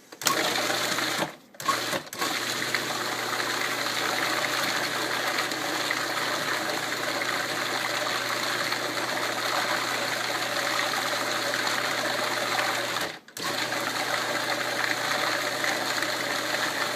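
Blender motor pulsed in a couple of short bursts, then run steadily for about eleven seconds, blending banana, pear and yogurt. It stops for a moment near the end and starts again.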